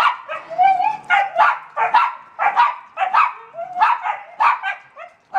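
Dogs barking and yipping in quick succession, about two or three sharp, high-pitched barks a second, stopping near the end. These are the sounds of rough play between a German Shepherd puppy and an older dog that is trying to fend him off.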